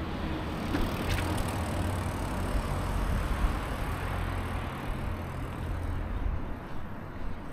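Town street ambience with a steady low rumble of traffic going by.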